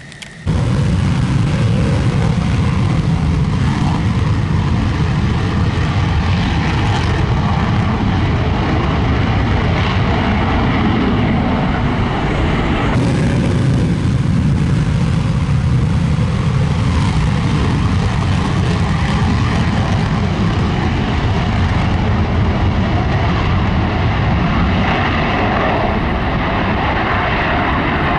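Loud, steady jet noise of an F-16 fighter's single afterburning engine on take-off at full afterburner. It starts abruptly about half a second in.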